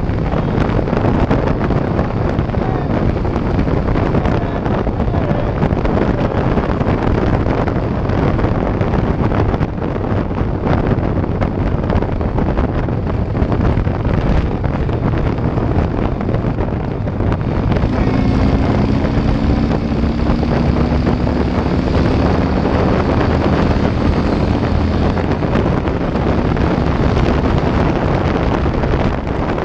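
Heavy wind roar on an action-camera microphone on a Harley-Davidson motorcycle at highway speed, with the low drone of the bike and road underneath. A pair of low tones, falling slightly in pitch, joins for several seconds after the middle.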